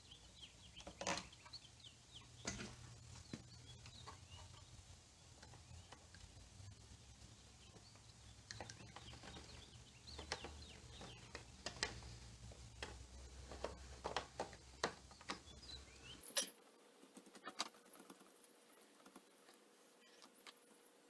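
Faint scattered clicks and light taps of a small screw, bracket and hand tools being handled while fitting a scooter's throttle cable, over a low hum that cuts off about three quarters of the way through.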